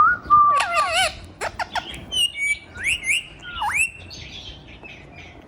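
Ringneck parrot (rose-ringed parakeet) calling: a quick run of whistled chirps and squawks that glide up and down in pitch, with a few sharp clicks, dying away after about four seconds.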